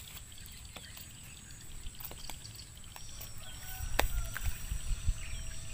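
Faint outdoor ambience: a steady high-pitched whine, scattered light ticks and clicks, and a low rumble that grows from about halfway in.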